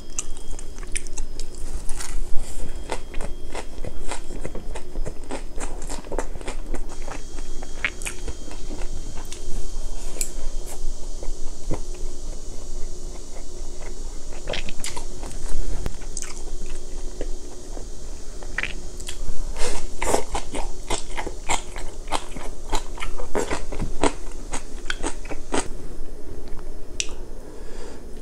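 Close-miked chewing and crunching of a mouthful of spicy stir-fried pork, with many small wet mouth clicks and crackles, busiest about twenty seconds in.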